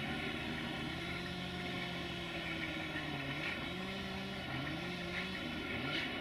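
Diesel engine of an approaching 060-DA (Sulzer-engined LDE2100) diesel-electric locomotive running under power, its engine note wavering slowly up and down in pitch.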